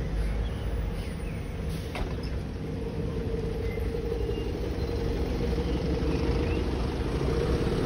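City bus engine running close by, with road traffic; a steady whine runs through it and grows stronger in the second half.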